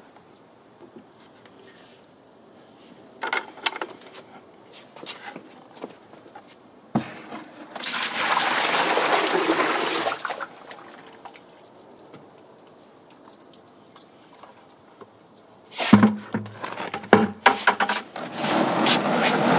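Runny cement slurry poured from a plastic bucket into a plastic tote: a steady gush lasting about two seconds near the middle, with scattered knocks of the bucket before it and a burst of clattering and splashing near the end.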